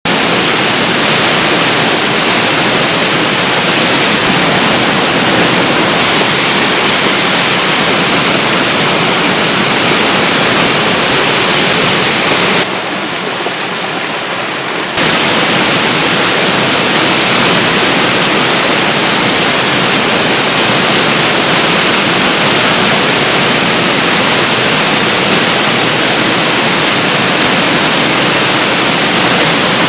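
Steady rushing of water falling from Yongmasan's large artificial waterfall. About 13 s in, it drops noticeably quieter and duller for about two seconds, then comes back at full level.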